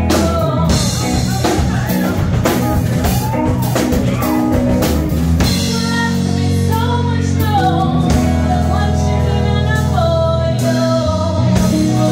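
Live band playing: a woman's lead vocal over acoustic and electric guitars, bass guitar and a drum kit with Zildjian cymbals.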